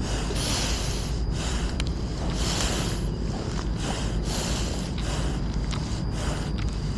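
Water buffalo wallowing in a mud pool: repeated hissy bursts about a second long, one every second or two, over a steady low rumble of wind on the microphone.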